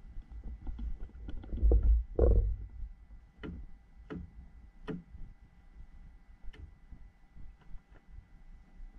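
Gill net being hauled in over the side of a small fishing boat by hand, with the rustle and rumble of handling that is loudest about two seconds in. Then come three sharp knocks about two-thirds of a second apart, and a fainter one a little later.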